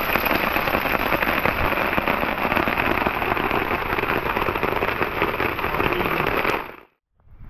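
Heavy rain pattering on a tarp, with a stream of runoff pouring off its edge and splashing onto wet leaf litter; dense crackling patter that cuts off suddenly near the end.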